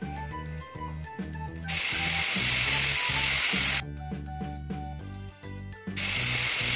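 Hawkins pressure cooker whistling twice: each time its pressure regulator lifts and lets steam out in a loud hiss lasting about two seconds, the first about two seconds in and the second starting near the end. The whistles signal that full pressure has been reached, and two of them mark the raw mango as cooked. Background music with a steady beat plays underneath.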